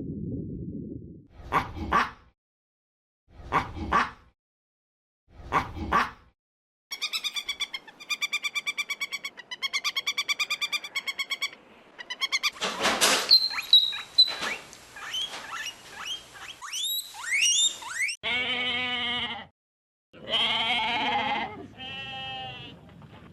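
A run of different animal calls cut one after another: three short cries about two seconds apart, then a rapid, evenly pulsed call lasting about five seconds, then several quick rising squeals, and drawn-out pitched calls near the end.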